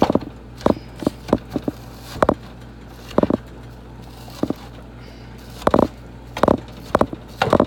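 Slotted spatula knocking and scraping against a skillet as meat is stirred and broken up while browning, in irregular clacks with gaps of up to two seconds. A steady low hum runs underneath.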